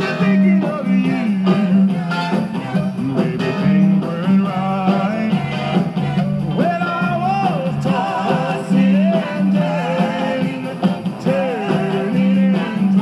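A vinyl record playing through a 1980s Panasonic SG-J800 boombox record player's speakers: a song with singing over a steady bass line.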